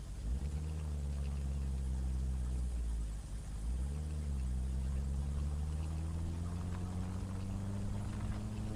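Benelli BN600i inline-four motorcycle engine running on the move. Its note breaks off briefly about three seconds in, comes back with a short jump in pitch, then rises slowly as the bike accelerates. Wind rushes over the microphone.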